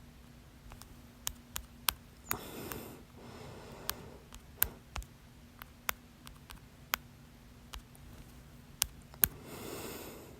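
A person with hiccups, silent between them: a run of sharp, irregular clicks, some only a third of a second apart, with breaths between. The loudest click, near the end, is followed by a breath out.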